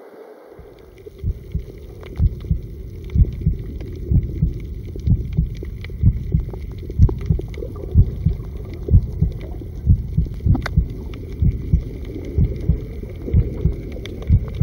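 Background music built on a low, even thump about twice a second over a faint steady hum, starting about half a second in.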